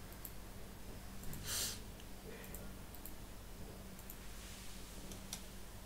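Scattered clicks of a computer mouse and keyboard, with a short hiss about a second and a half in, over a faint steady electrical hum.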